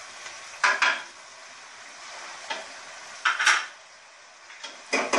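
Minced beef sizzling in a metal pan while a slotted metal spoon stirs it, scraping and clanking against the pan in short bursts: about a second in, a pair at about three and a half seconds, and again near the end.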